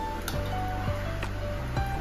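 Background music: a light melody of short held notes stepping in pitch over a steady bass line, with soft ticks keeping the beat.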